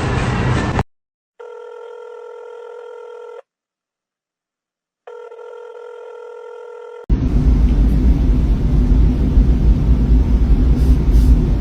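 A telephone ringback tone: two steady rings about two seconds long with a pause between them. A loud low rumbling noise starts about seven seconds in, and a noisy sound cuts off under a second in.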